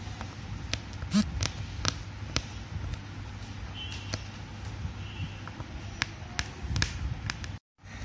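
Irregular sharp clicks and taps of a hook-tipped embroidery needle punching through fabric stretched taut on a frame as beads are stitched on, over a steady low hum. The sound cuts out briefly near the end.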